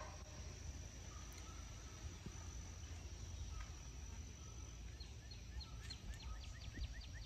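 Faint summer field ambience: a steady high-pitched insect drone over a low rumble. Near the end comes a quick run of short chirps, about five a second.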